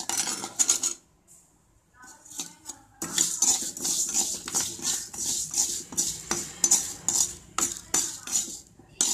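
A steel spoon stirs and scrapes moong dal as it roasts in ghee in a kadai, in quick repeated strokes. The stirring stops about a second in and starts again at about three seconds.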